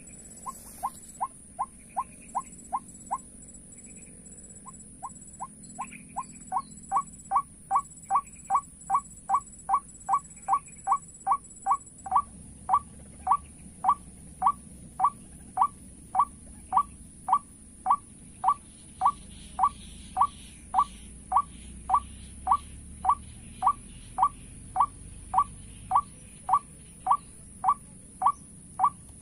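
White-breasted waterhen (ruak-ruak) call played as a trapping lure: a short, rising, squeaky note repeated evenly, two to four times a second. It breaks off about three seconds in and resumes a second or two later.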